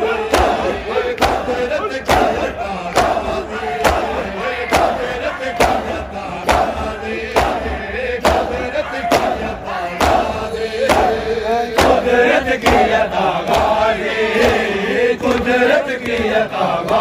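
A crowd of men chanting a nauha, a Shia lament, with unison chest-beating (matam): sharp hand slaps a little more than once a second, evenly spaced under the chant.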